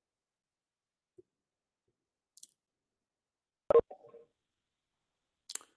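Near silence on a noise-gated call line, broken by a few short clicks. The loudest comes about two-thirds of the way through.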